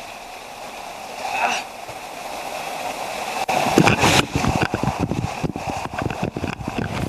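Floodwater splashing and sloshing as several people wade knee-deep through it, pushing a stalled car. It starts loud and choppy about three and a half seconds in, after a quieter, steady background.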